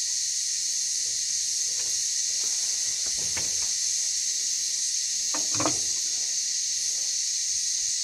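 Steady high-pitched drone of insects, with a couple of faint short sounds about three and five and a half seconds in.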